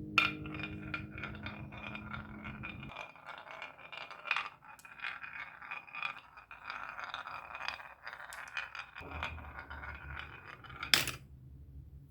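Marbles rolling and clattering down a wooden marble-run track, with a continuous rattle of small clicks and knocks. It opens with a sharp click and ends with one loud knock about eleven seconds in. A low steady hum runs underneath at the start and again from about nine seconds.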